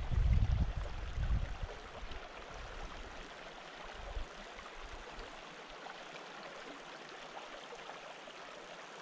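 Small mountain creek trickling, a steady, even hiss of running water. A low rumble on the microphone fills the first second or so.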